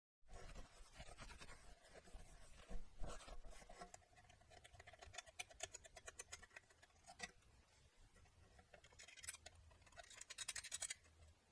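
Faint scratching and light clicking of hands and small tools working on the metal parts of a Mazzer Mini D coffee grinder, with two runs of quick scraping strokes, one in the middle and one near the end.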